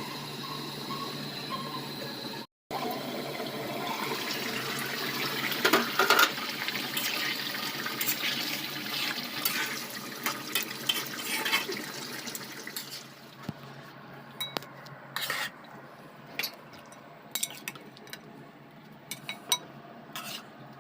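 Chicken curry cooking in a pot: a steady wet hiss of liquid in the pan, then sharp clinks of a metal spoon or ladle against the pot.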